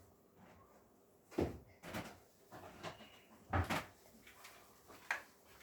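Cupboard doors and household items being handled: a handful of separate dull knocks and clunks, the two loudest a couple of seconds apart near the middle.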